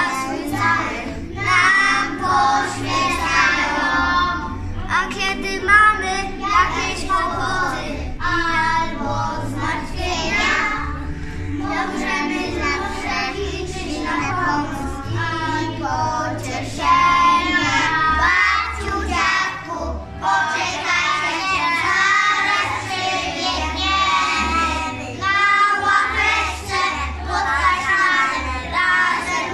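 A group of young children singing a song together with musical accompaniment.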